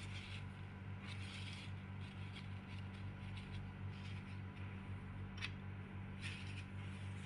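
Faint rustling of a paper tissue and handling of a pH electrode, with two light clicks in the second half, over a steady low hum.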